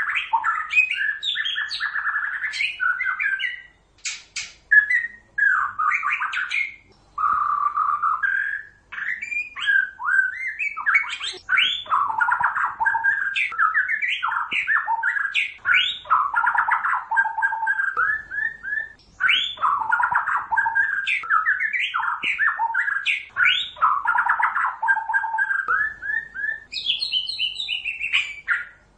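White-rumped shama singing a long, fast, varied song of whistled and chattering phrases, broken by a few short pauses, with higher, sharper notes near the end.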